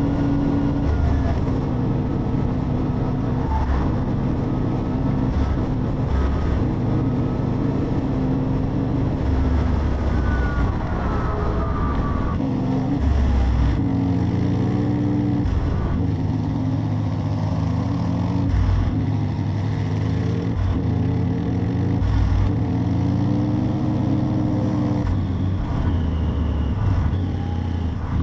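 Motorcycle engine running while riding, heard with wind and road noise. The engine note rises and falls a few times as the throttle and gears change.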